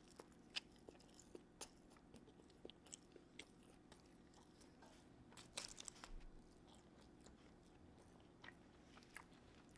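Faint close-up eating: a person biting into and chewing a fried chicken sandwich, with scattered soft crunches and mouth clicks and a brief louder cluster of crunching about five and a half seconds in.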